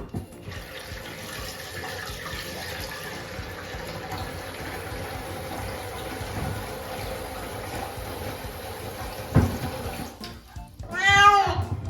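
Shower water spraying steadily for about ten seconds, with one thump about nine and a half seconds in. The spray stops, and a Munchkin cat gives one meow near the end.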